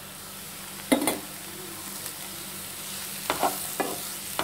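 Chopped mushrooms and onions sizzling in a frying pan while a wooden spatula stirs them, with sharp knocks of the spatula against the pan about a second in and a few more near the end.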